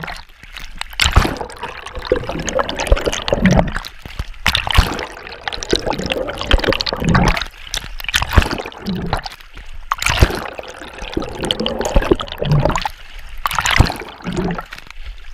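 Front-crawl arm strokes splashing and churning lake water, in loud surges roughly every one to two seconds, heard from a camera that dips under the surface and back out, so the splashes alternate with muffled underwater gurgling.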